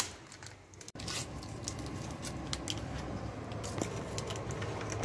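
Hospital room background: a steady low hum with scattered light clicks and rustles of handling.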